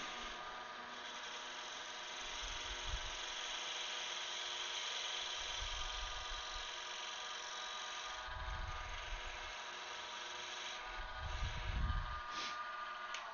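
Wood lathe running with a steady motor whine while a turning tool cuts the face of a spinning spalted wood blank, giving a continuous scraping hiss that grows a little louder near the end.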